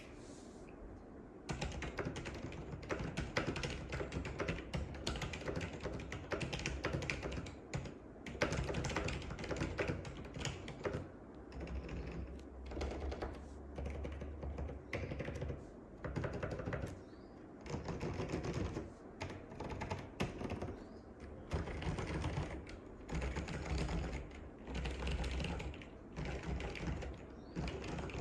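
Typing on a 1990 Apple Extended Keyboard II with lubed, paper-modded Alps Cream Damped switches and dye-sublimated PBT keycaps: fast runs of keystrokes with a woody sound, in bursts with short pauses, starting about a second and a half in.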